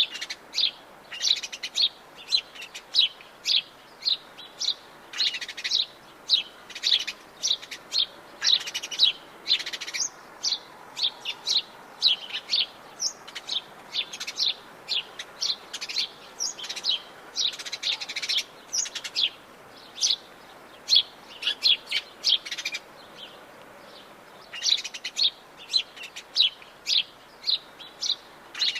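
Birds singing and chirping: many short, quick chirps, several a second, with a brief lull about two-thirds of the way through.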